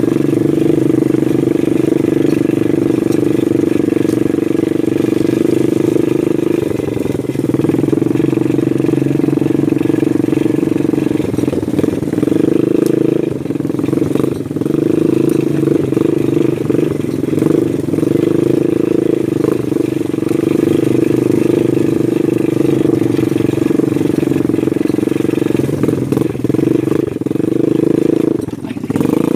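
Small ATV engine running on a steady throttle, its pitch dipping briefly a few times as the throttle eases and picks up again.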